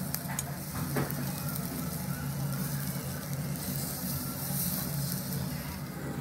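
Meat sizzling on a table-set charcoal yakiniku grill, a steady hiss over a constant low hum. There are a couple of light clicks of metal tongs in the first second as meat is placed on the grate.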